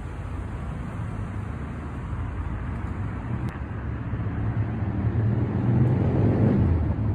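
City street traffic: a steady rumble of passing vehicles, with one vehicle passing close and loudest about six seconds in.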